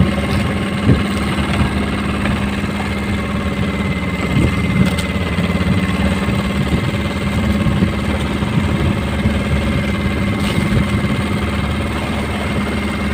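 An engine aboard a wooden outrigger fishing boat running steadily at an even speed: a constant low hum with a faint, steady high whine above it.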